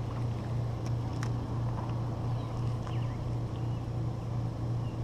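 A steady low mechanical hum with no change in pitch, with a few faint ticks and faint short high chirps over it.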